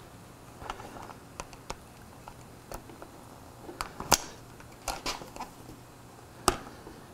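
Light, irregular metal clicks and clinks of a socket wrench on a long extension working a bolt at a motorcycle's front-end bracket, with sharper clinks about four and five seconds in and one near the end.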